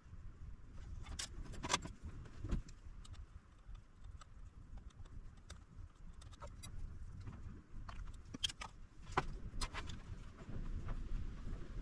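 Irregular small clicks and taps of metal tools and parts being handled during soldering work, over a steady low rumble.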